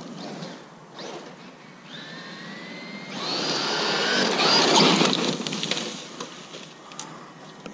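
Traxxas Maxx RC monster truck's electric motor whining and rising in pitch as it speeds up, then the truck running loud close by for about two seconds before fading away.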